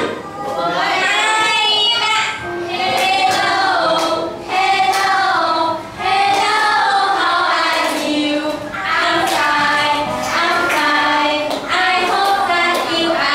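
A children's song: young voices singing together over music, in short phrases of about two seconds each.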